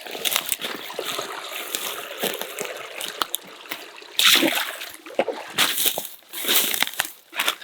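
Footsteps and rustling through brush and grass, irregular, with the loudest bursts about four seconds in and again near the end.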